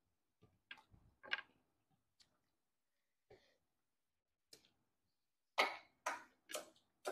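Close-up eating sounds with the hands: scattered small wet mouth clicks and chewing smacks. Near the end come four short, louder smacking bursts about half a second apart.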